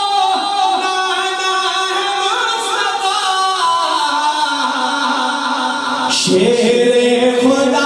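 A man singing an unaccompanied Urdu devotional poem in long, wavering held notes. About six seconds in there is a brief break, and then a new phrase starts on a lower note, a little louder.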